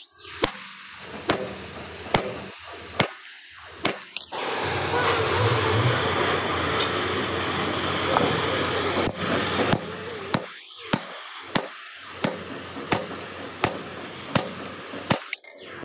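Sharp knocks, roughly one a second, with a steady loud hiss from about four seconds in that cuts off about five seconds later, after which the knocks go on.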